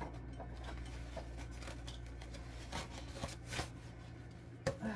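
Paper towel rustling and crinkling as it is handled, with a few light taps, over a steady low hum.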